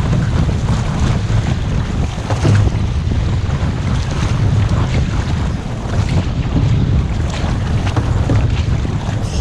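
Strong wind buffeting the microphone with a constant low rumble, over water splashing and slapping around an outrigger canoe's hull and paddles as it is paddled through chop.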